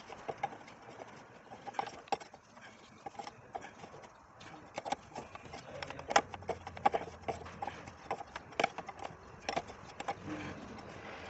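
Steel ring spanner clinking and knocking against metal as a bolt on a truck's air dryer is worked by hand: a string of irregular sharp clicks, several a second at times.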